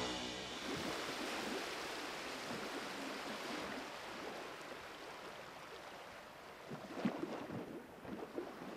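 Music fading out at the start, then a faint steady rushing noise, with a few soft clicks about seven seconds in.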